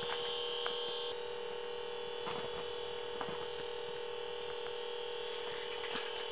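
A steady hum, with a higher whine over it that stops about a second in, and a few faint light clicks.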